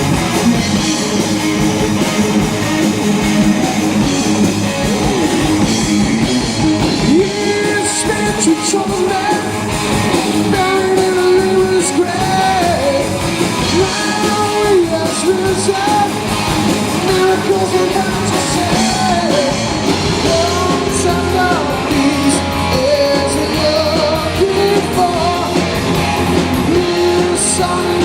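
Live rock band playing loudly: distorted electric guitars, bass and drums, with a melodic lead line that bends up and down in pitch over the band.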